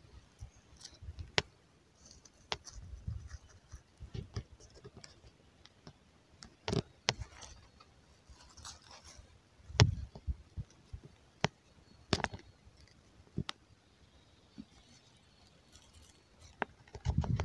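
Stones and dry leaves handled by hand: scattered sharp clicks and knocks with brief rustling in between, at irregular intervals, the loudest about ten seconds in.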